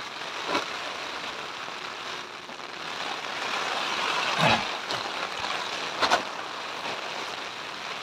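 Heavy rain falling on a camping tent, heard from inside as a steady rushing hiss that swells about halfway through. A few sharp clicks come through it.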